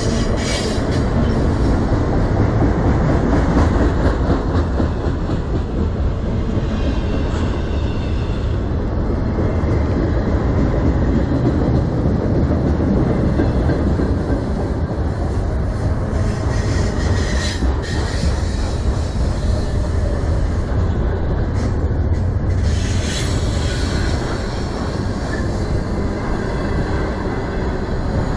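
Freight train of autorack cars rolling past close by: a steady, loud rumble and clatter of steel wheels on rail. A few times there are brief, higher-pitched wheel squeals.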